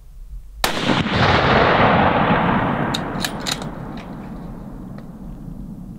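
A single hunting-rifle shot about half a second in, its report rolling and echoing for about three seconds before dying away, followed by a few short sharp clicks.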